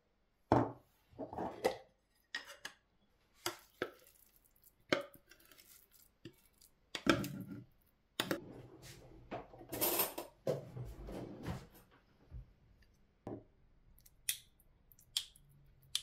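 A small glass jar set down on the counter and its metal lid taken off, then a teaspoon scraping and clinking as pesto is spooned from a food-processor bowl into the jar. The sound is a series of sharp knocks and clinks, with longer scraping about two thirds of the way through.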